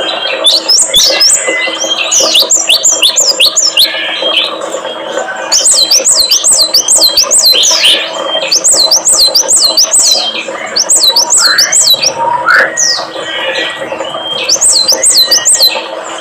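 A small songbird gives fast runs of high, sharp chirps, about five a second, in bursts of a second or two with short breaks between, over a steady low hum.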